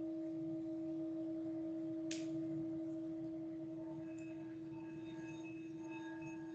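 A singing bowl's steady, pure low tone, slowly fading. A brief high strike comes about two seconds in, and faint, higher ringing tones start at about four seconds.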